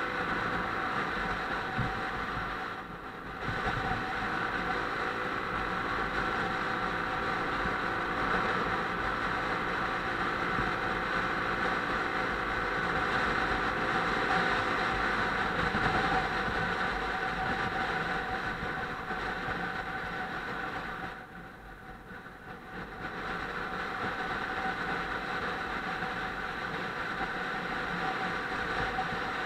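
Motorcycle engine running steadily under way, with wind and road noise. The sound drops off twice, briefly about three seconds in and for about two seconds past the twenty-second mark, as the throttle eases.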